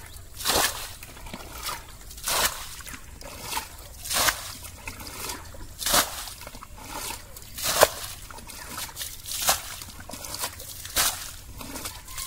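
Muddy water bailed with a plastic bucket from a shallow pool: a sudden splash as each bucketful is flung out, seven times at a steady pace of about one every second and a half to two seconds, with softer sloshing and trickling as the bucket scoops in between.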